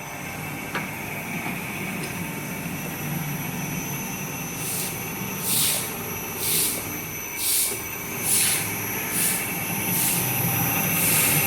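Knife grinding machine running with a steady motor hum and a thin high whine. From about halfway in, short hissing bursts repeat roughly once a second, and the sound grows louder near the end.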